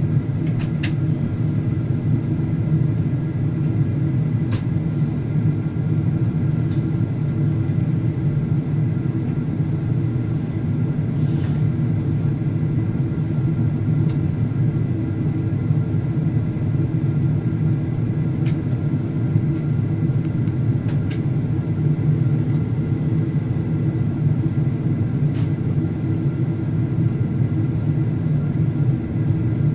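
Steady cabin noise inside a Boeing 767-400ER on final approach: a constant low rumble of engines and airflow, with a few faint steady high tones and occasional small clicks.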